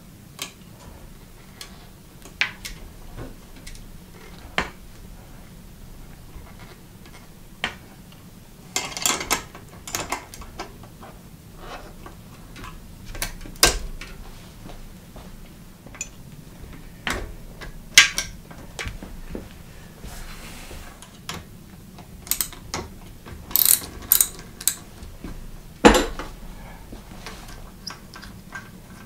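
Irregular metallic clicks and clinks of a combination wrench and a bicycle V-brake's arm and brake-pad hardware being handled and tightened, a few louder than the rest.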